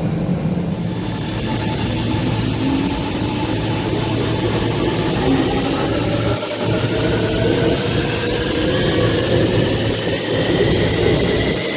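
Shanghai Metro train moving along the platform, its rumble overlaid by a motor whine that rises slowly in pitch.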